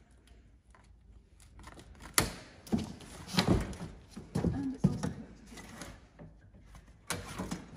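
A wire basket and cardboard packing being shifted about inside a cardboard box: scattered knocks and scraping starting about two seconds in, busier near the end.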